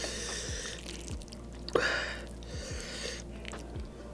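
Close-up eating sounds: chewing and wet, sticky squishing as sauce-coated Samyang spicy instant noodles and melted cheese are pulled apart by hand. A louder wet smack comes just under two seconds in.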